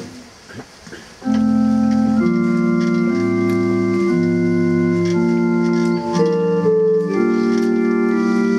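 Organ coming in about a second in and playing slow, held chords that change about once a second: the introduction to a hymn.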